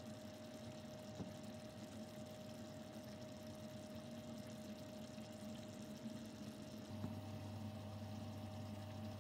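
Steady low hiss with a faint hum, the background noise of a kitchen; a deeper hum joins about seven seconds in.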